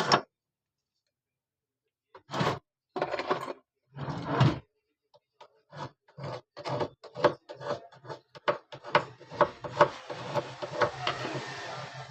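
Small tools scraping and clicking against a phone's circuit board and parts while a new charging jack is being fitted. There are a few separate scrapes at first, then a quick run of clicks and rubs, with a steady hiss joining in near the end.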